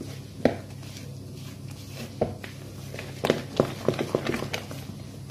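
Spoon working flour into a soft biscuit dough in a mixing bowl: scattered light knocks and taps against the bowl, several close together past the middle, over a steady low hum.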